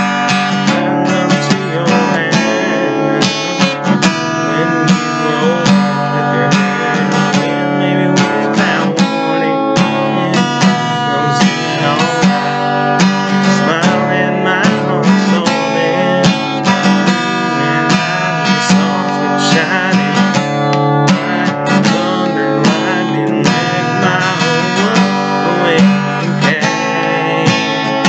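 Acoustic guitar being strummed: a steady, continuous run of chords played in a regular rhythm.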